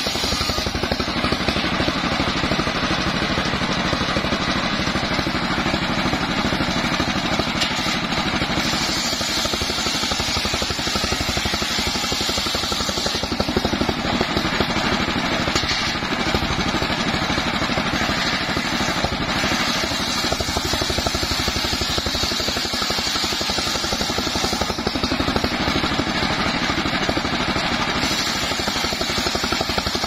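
Engine-driven table circular saw running steadily and ripping mahogany planks lengthwise. The blade's high cutting hiss comes and goes in several stretches as boards are fed through, over the constant drone of the engine.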